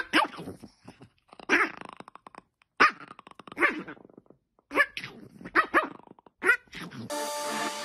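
A dog hidden under a blanket growls and barks in short, repeated bursts about once a second while grabbing at a person's arm in play. Electronic music starts near the end.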